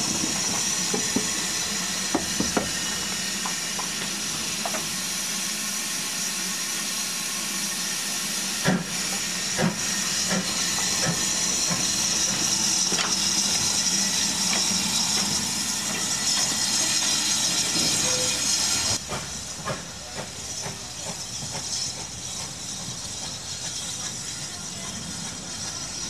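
Steam locomotive 41241, an LMS Ivatt Class 2MT 2-6-2 tank engine, blowing off steam at its safety valves: a loud, steady hiss with a few sharp knocks. About two-thirds of the way through it cuts abruptly to a quieter hiss with small clicks.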